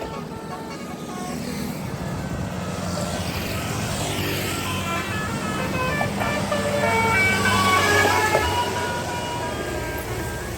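Bus "telolet" multi-tone horn playing a quick tune of short notes over the engine of a passing bus, growing louder to about eight seconds in.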